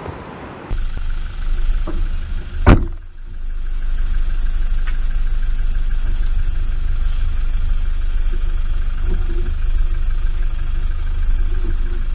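Toyota Hilux D-4D diesel engine running steadily at idle, with one sharp thump about three seconds in.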